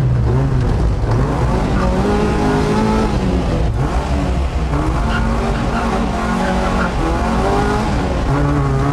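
Rally car engine revving, its pitch rising and falling again and again.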